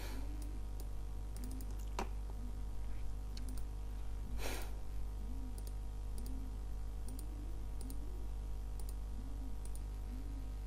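Computer mouse clicking a few times, sharp single clicks with a longer scraping stroke about halfway through, over a steady low electrical hum.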